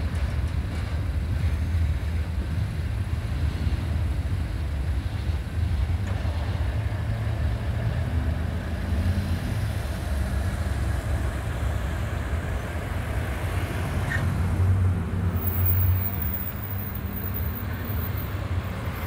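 Cars idling and driving over a railroad crossing as the last of a freight train clears it. A steady low rumble swells briefly about three-quarters of the way through as a car passes close.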